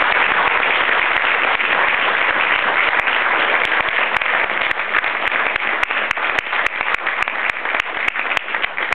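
Audience applauding: dense, steady clapping that thins toward the end into more separate claps.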